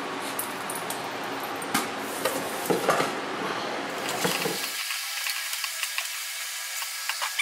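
Red-hot steel blade sizzling and hissing as it is quenched for hardening in a quench tank, with sharp metallic clinks and knocks as it is worked in the tank.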